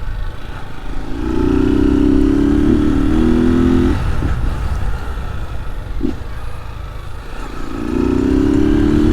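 Honda Start motorcycle's single-cylinder engine, run without its air filter, pulling under throttle twice for about three seconds each with a steady note. Between the pulls it eases off, and low wind rumble runs underneath.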